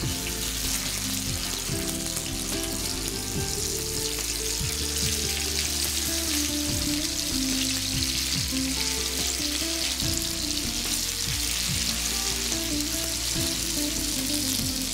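Masala-marinated catla fish pieces sizzling steadily as they shallow-fry in hot oil on a flat tava.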